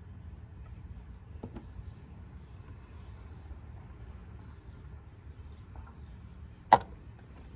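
Steady low background noise with faint bird chirps. There is a soft tap about a second and a half in, and near the end one sharp click, the loudest sound, as the plastic oil funnel in the engine's filler neck is handled.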